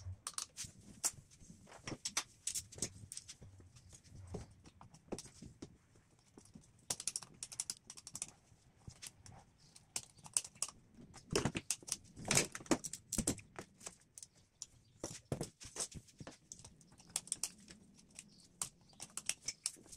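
Irregular clicks, clinks and light knocks of hand tools and fasteners on engine parts while the intake manifold screws and throttle body clamp are undone, with a run of louder knocks a little past the middle.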